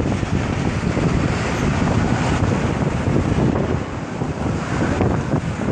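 Wind buffeting the microphone: a steady, rough low rumble with a hiss over it.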